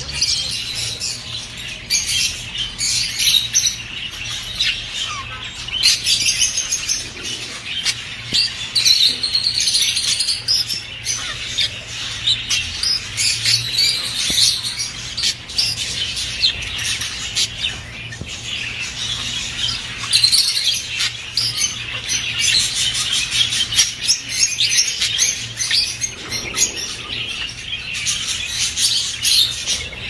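A flock of budgerigars chattering and warbling continuously, a dense mix of quick chirps and trills, over a faint low steady hum.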